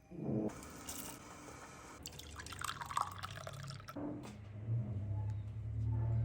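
Liquid pouring and dripping into a container, then a low steady hum from about two-thirds of the way through.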